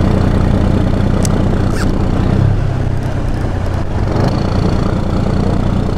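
Fishing boat's engine running steadily, a low drone, with two sharp clicks between one and two seconds in.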